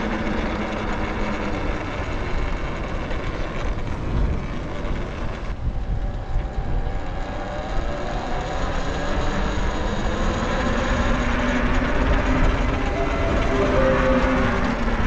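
Talaria Sting R electric dirt bike riding along: the electric motor and chain drive whine, with the pitch rising over the second half as the bike speeds up. A heavy wind rumble on the microphone sits underneath.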